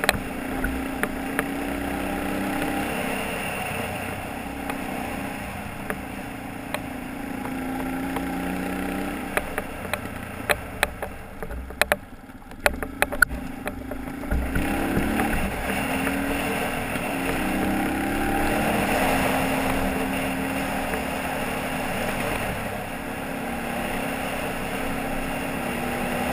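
Dual-sport motorcycle engine running while riding a dirt forest road, its pitch rising and falling with the throttle. Around the middle the engine drops back and a cluster of sharp clicks and knocks is heard, then it pulls up again.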